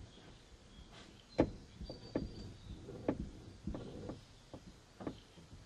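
Irregular knocks and thumps from the car's body as it is pushed by hand, heard from inside the cabin: about seven over a few seconds, the loudest about a second and a half in.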